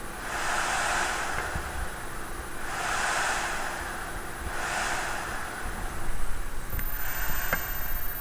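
AFOX Radeon HD 5870 graphics card's cooler fan under full stress-test load, its whoosh swelling and fading four times, about every two seconds, as the fan speed repeatedly ramps up and down. A low rumble joins about six seconds in, and there is a sharp click near the end.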